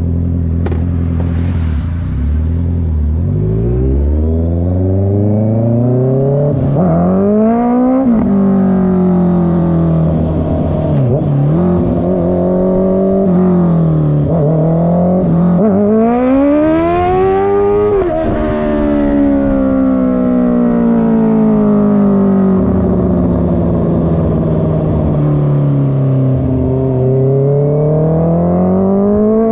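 Honda CB650R's 649 cc inline-four with a loud exhaust, idling at first, then pulling away. The engine note climbs in rising sweeps and drops sharply at each gear change, falls off slowly after a high peak in the middle, and climbs again near the end.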